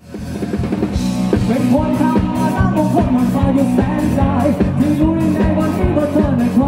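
Live rock band playing, with a singer and electric guitar over a steady drum beat. The sound fades in over the first half-second.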